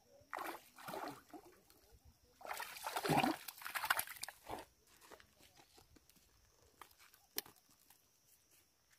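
A hooked fish thrashing and splashing in weedy shallow water at the bank as it is pulled in. There is a short splash about half a second in, then a longer, louder bout of splashing around the middle, followed by a few small drips and clicks.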